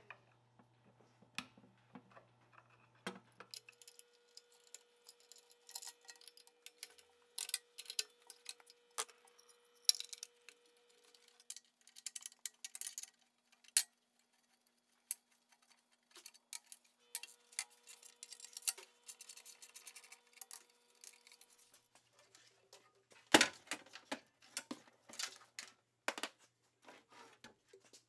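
Hand-tool work on an old air compressor: irregular metallic clicks, clinks and scrapes of a screwdriver on the pressure switch and a wrench on the electric motor's mounting bolts. Later on, a few louder clanks.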